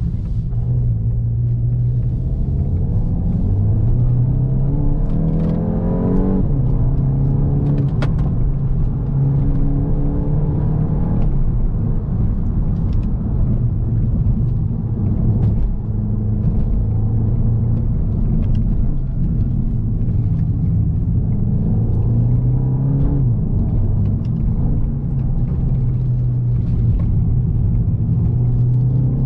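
Volkswagen Golf GTI Mk8's turbocharged 2.0 TSI four-cylinder engine under way. It climbs in pitch and drops back several times as the 7-speed DSG shifts, over steady road rumble. One sharp click comes about eight seconds in.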